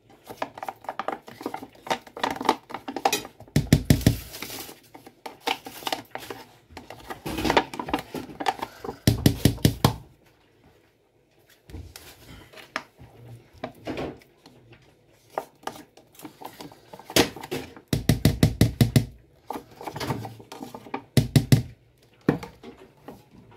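A fork scraping and knocking against a plastic tub as soft quark is scooped out into a bowl of flour, in several bursts of quick taps with short pauses between.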